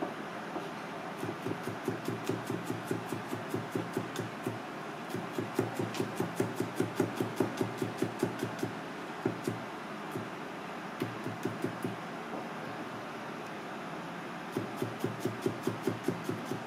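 A Misono chef's knife mincing garlic on a plastic cutting board: rapid, even chops about five a second, in several runs broken by short pauses.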